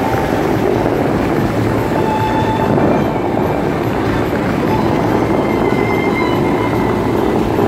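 Dubai Fountain's rows of high-pressure water jets spraying up and falling back into the lake: a loud, steady rush of water.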